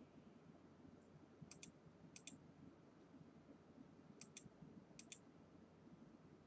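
Faint computer mouse clicks, four quick double clicks spaced a second or two apart, over near-silent room tone.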